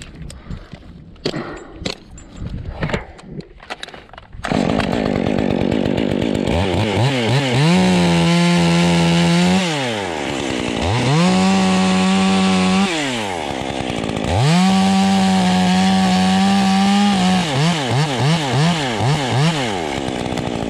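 A few scattered knocks, then a two-stroke chainsaw comes in loud about four seconds in. It revs up to full speed and holds for a few seconds three times, dropping back to idle between. Near the end it gives several quick throttle blips.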